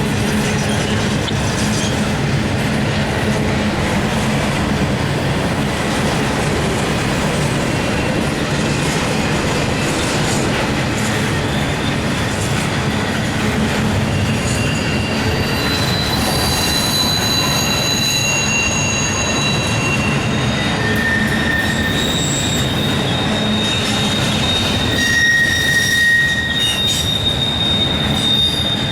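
A CSX intermodal freight train's cars rolling past, their wheels rumbling and clacking on the rails. From about halfway through, steel wheel flanges squeal against the rail in several high, drawn-out tones that overlap and fade in and out.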